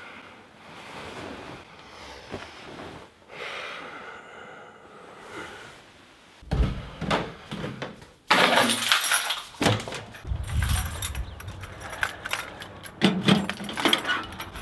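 A run of household handling noises: soft rustling of bedding at first, then sudden loud thumps and clatter from about six seconds in. Near the end, keys jangle as a metal wall-mounted mailbox is unlocked and opened.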